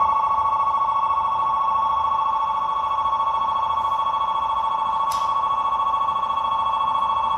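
Electronic railway platform departure bell ringing continuously with a fast warbling trill, signalling that the train is about to leave. A single short click sounds about five seconds in.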